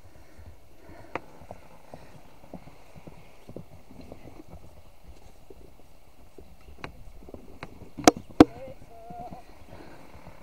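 Horse's hooves clopping irregularly, with two loud, sharp knocks in quick succession about eight seconds in.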